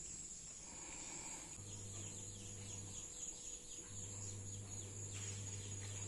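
Faint outdoor yard ambience: a steady high insect drone with faint repeated chirps, and a steady low hum that sets in about a second and a half in, drops out briefly near the middle, then returns.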